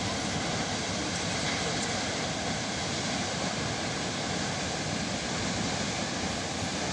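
Waterfall: water falling with a steady, unbroken rush of noise.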